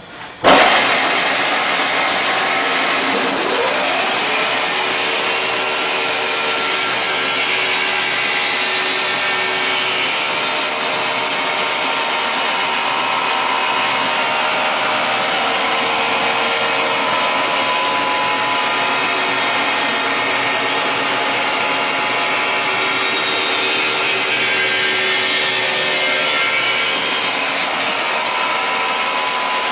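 Bamboo BBQ stick sharpening machine starting up about half a second in, then running with a steady, loud grinding whirr as sticks are fed over its toothed wheel and sharpened.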